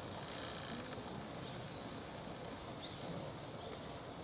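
Steady outdoor background noise with a few faint, short high chirps spaced about a second and a half apart.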